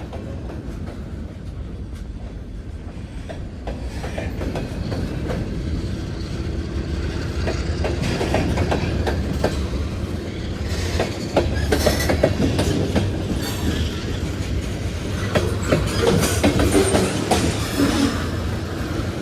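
Diesel-hauled freight train approaching and passing, a low engine rumble growing louder, with wheels clicking over rail joints more and more densely.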